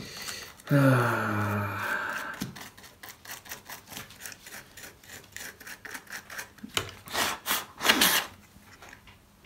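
Cotton swab scrubbing grime from inside an opened iPhone 5S, a run of quick rubbing strokes several times a second, with a few louder strokes near the end. A brief low hum comes about a second in.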